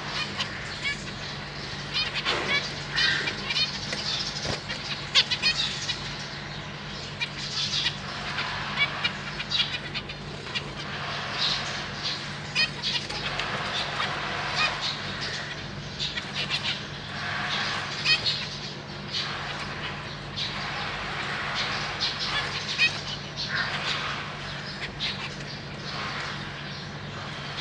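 Zebra finches calling over and over with short, high chirps and beeps, mixed with bursts of wing fluttering and rustling in the cage. A steady low hum runs underneath.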